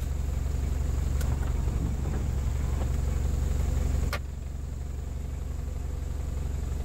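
A vehicle engine idling with a steady low rumble. A sharp click comes about four seconds in, after which the rumble drops and the sound is quieter.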